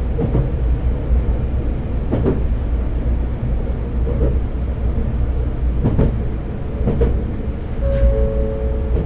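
Diesel railcar running along the track: a steady low rumble of engine and wheels, with the wheels clicking over rail joints every second or two. A short two-note tone, the second note lower, sounds near the end.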